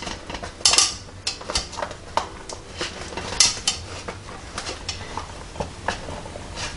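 Metal bread-machine pan being shaken upside down and knocked against a wooden cutting board to free the loaf, which the kneading paddle is holding in: irregular clanks and clicks, with a few louder knocks.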